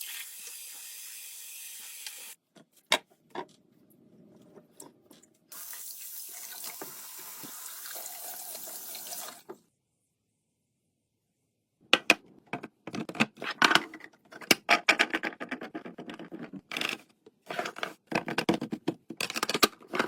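Kitchen tap running water into a sink while fruit is washed: the water stops, with a few knocks, then runs again for about four seconds. After a short silence comes a dense run of sharp clicks and clatter, as of fruit and containers being handled.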